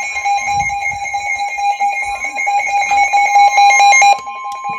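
Emergency Alert System attention signal: the steady two-tone alarm that announces an EAS warning, sounding continuously with clicks of static running through it.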